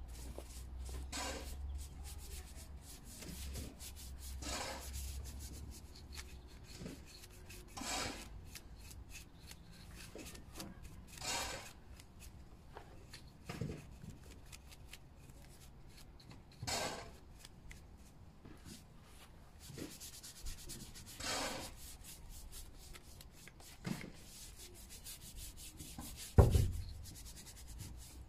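A bristle paintbrush scrubbing finish onto rough timber, a scratchy rub in separate strokes every couple of seconds. One knock near the end.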